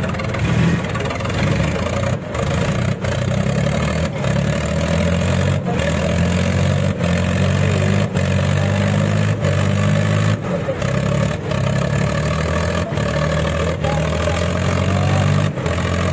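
The diesel engines of an Eicher 557 and a Sonalika 750 tractor run hard and steady at full load as the two pull against each other in a tug-of-war, their front wheels lifting.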